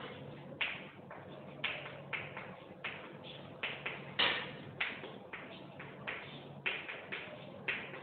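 Chalk writing on a blackboard: a quick, uneven run of short scratchy strokes, each starting with a tap and fading, as letters are written.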